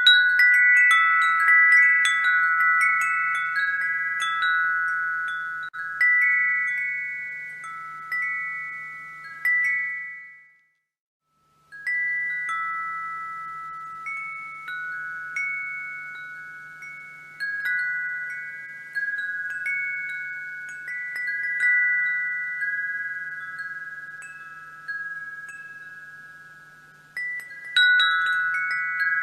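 Wind chimes ringing: several clear high notes struck at irregular moments, each fading before the next strikes, sometimes in quick clusters. The sound breaks off to silence for about a second partway through, then the chiming resumes.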